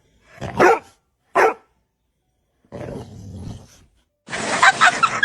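A dog barking twice, loud, within the first second and a half. Then a quieter patch of noise, and near the end a louder jumble of mixed sounds begins.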